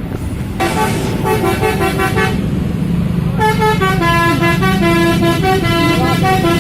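Tour bus telolet horn playing a tune of quick, changing notes: a short run about half a second in, then a longer run from about three and a half seconds, over the bus engine running.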